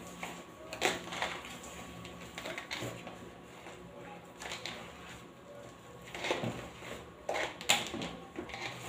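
A hand mixing and squeezing half cake dough, flour with wet ingredients, in a plastic bowl: irregular rubbing and soft knocks against the bowl, the loudest near the end.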